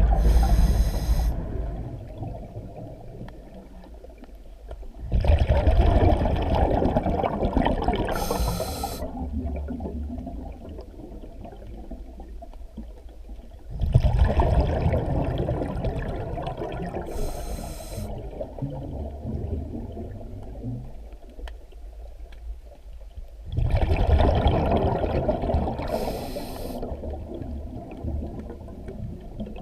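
Scuba diver breathing through a regulator underwater: a short hissing inhale, then a long bubbling exhale that fades, repeating about every nine seconds.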